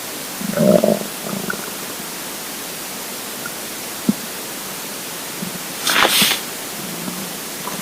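Empty stomach gurgling in short pulsing bursts about half a second in and again a little later, with a faint low rumble near the end, over a steady hiss: hunger rumbles of an empty stomach. A brief hissing burst comes about six seconds in.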